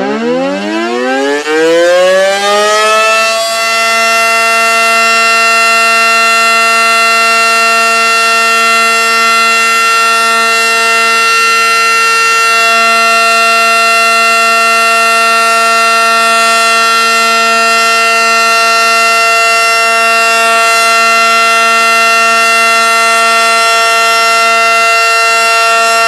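Outdoor civil-defense warning siren winding up, its pitch rising over the first few seconds, then holding one loud, steady tone.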